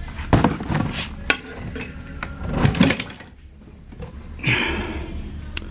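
Hardware of a ceiling fan being handled and refitted: several sharp clicks and knocks of hard parts against each other in the first few seconds, then a scraping rustle after a short lull, with one more click near the end.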